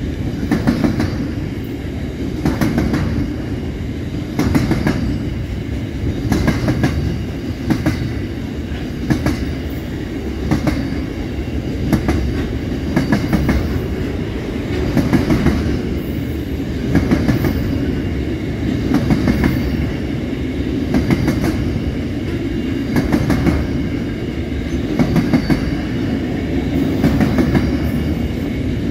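Double-stacked container wagons of a freight train rolling past at close range: a steady rumble of wheels on rail with clusters of clacks about every two seconds as wheelsets cross the rail joints.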